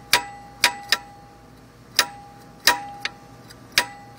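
Seven sharp metallic clacks at uneven spacing, each with a brief ring, from the destroyed harmonic balancer of a GM 3800 Series II V6 being rocked back and forth by hand, its damaged parts knocking together.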